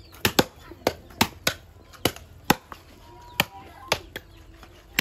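Heavy knife chopping through pork: about ten sharp strikes, unevenly spaced.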